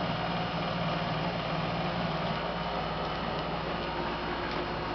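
Steady machine hum with an even hiss, and a few faint ticks near the end.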